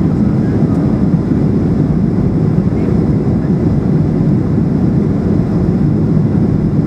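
Steady cabin rumble of a Boeing 737-800 airliner in flight: the CFM56-7B engines and rushing airflow, heard from a seat inside the cabin.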